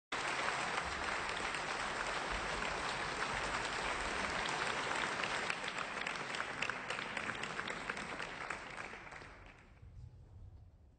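Audience applauding, dense clapping that dies away over the last two seconds or so.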